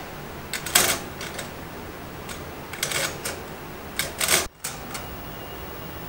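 Budgerigar pecking and tapping at a small hard-plastic mirror toy with its beak: quick clusters of sharp clicks, three bursts, the loudest about a second in, with a few single taps between.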